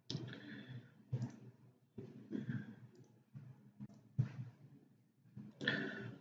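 A handful of faint, separate clicks of a computer mouse, about five spread over several seconds, with faint room noise between them.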